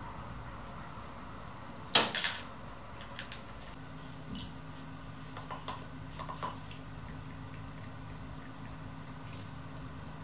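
A single sharp plastic clack about two seconds in as a cat knocks at a plastic treat-puzzle feeder, followed by a few light taps, over a steady low hum.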